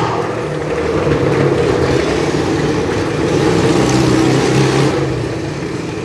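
Motorcycle engine running hard and revving as the bike circles the vertical wooden wall of a Wall of Death drum, the sound enclosed by the drum.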